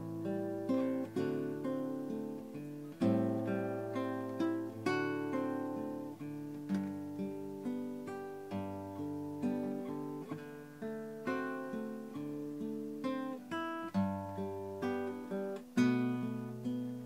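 Background music of a plucked acoustic guitar: a steady run of picked notes and chords, each ringing out and fading.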